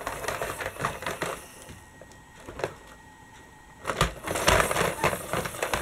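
Plastic toy trams and a toy articulated bus clattering and rattling as they are moved by hand over a wooden stick track. The sound comes in two bursts: one at the start lasting about a second and a half, and a louder one from about four seconds in.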